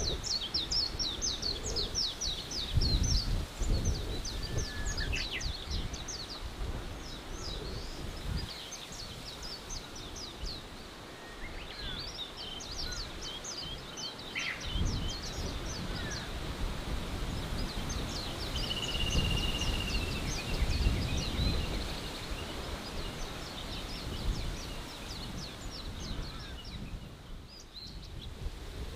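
Forest ambience: small songbirds singing fast, high trilling phrases in several bouts, with one short steady whistled note about two-thirds of the way through. Underneath runs a low, gusty rumble of wind.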